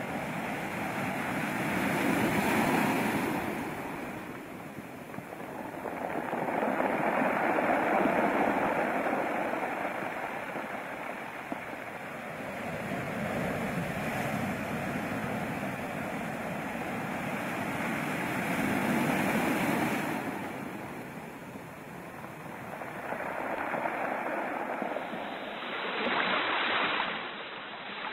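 Rushing water noise that swells and fades about every five to six seconds.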